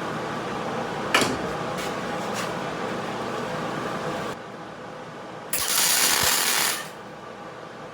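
Miller-Matic 140 wire-feed welder humming steadily while its wire feed is checked, with a few sharp clicks. The hum drops about four seconds in, and a loud hissing burst lasting about a second follows shortly after.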